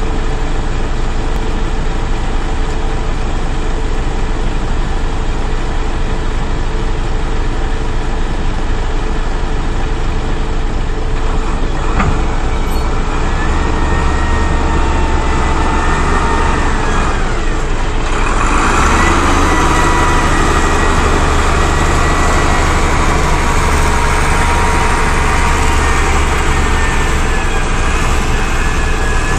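Diesel engine of a Volvo BM 4400 wheel loader running steadily, then revving up and growing louder about halfway through as the loader moves off, with a thin whine riding over the engine.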